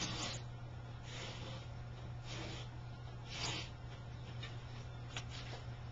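Pencil scratching on drywall, tracing around the edge of a repair piece held against the wall in about five short, faint strokes, over a steady low hum.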